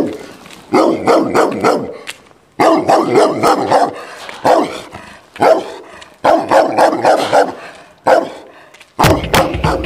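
Dog barking in quick runs of several barks with short pauses between them; a guitar-rock music track starts about a second before the end.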